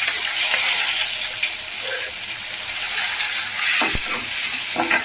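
Chopped onion and curry leaves sizzling in hot oil with fried garlic in a pan, a steady hiss, with a single knock about four seconds in.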